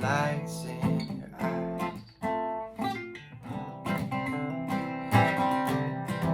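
Acoustic guitar strumming chords, an instrumental passage of an acoustic song.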